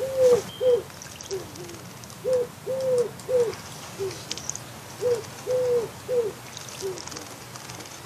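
Common wood pigeon singing its five-note cooing phrase three times, each phrase with a longer, stressed second coo. Faint water splashes from a small bird bathing in a bird bath sound between the phrases.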